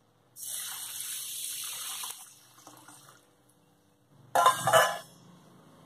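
Water poured from a steel vessel into a steel bowl of urad dal and fenugreek seeds, a splashing pour lasting about two seconds. About four seconds in, a brief, louder double clatter.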